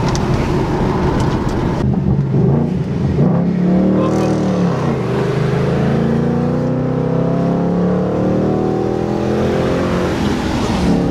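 Ford Mustang engine heard from inside the cabin under hard acceleration: its pitch dips about four seconds in, then climbs steadily for several seconds as the car pulls.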